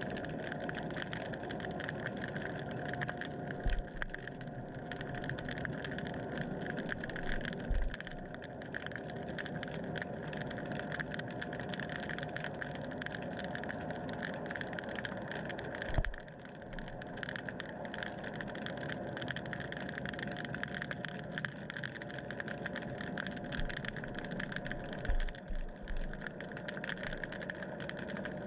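Steady motor hum and hiss heard underwater, with a thin steady whine through it and a few soft low knocks.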